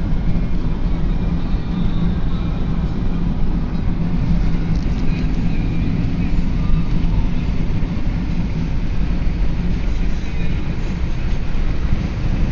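Steady road and engine noise of a moving car heard from inside the cabin: a constant low rumble with a steady hum.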